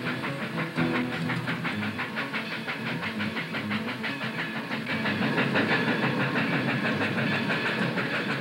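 Toy electric train running on three-rail track: a fast, even clicking of the wheels over the rails, over a steady motor hum, a little louder from about five seconds in.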